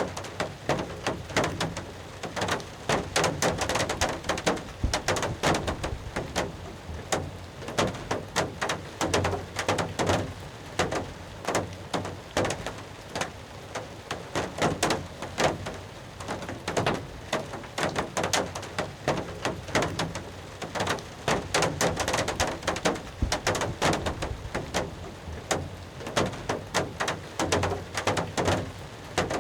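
Heavy rain drumming on a hunting blind, a dense, irregular patter of drops.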